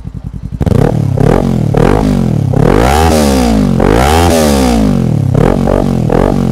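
Kawasaki Ninja 400 parallel-twin engine blipped through an aftermarket slip-on muffler: it idles, then about half a second in is revved again and again, a run of quick throttle blips with two longer revs climbing high and falling back near the middle.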